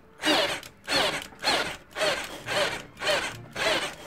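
Counterfeit Bosch GSR 18-2-LI Plus cordless drill driving a hex-head screw into a wooden block through a socket, run in short bursts about two a second. The drill is being jolted to force the screw in and is close to stalling under the load.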